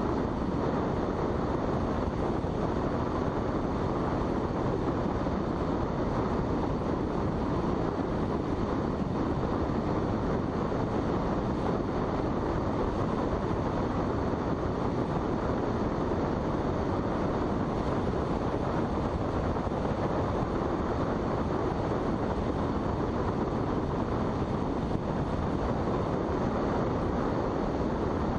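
Steady rush of airflow and wind noise in a glider on aerotow behind a tow plane, with no clear engine note.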